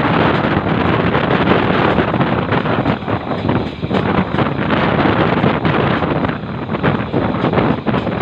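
Passenger train running into a station: a loud, steady rumble and rush, with wind buffeting the microphone.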